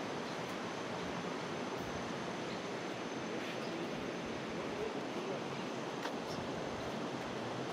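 A steady, even rushing noise with no changes, and a few faint short ticks over it.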